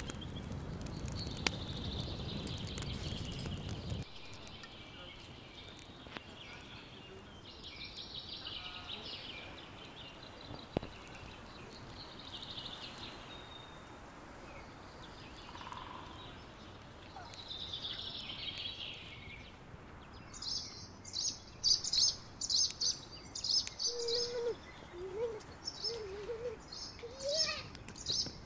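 Songbirds chirping in the background, with a fast run of repeated high chirps in the last third. A low rushing noise fills the first four seconds and then stops.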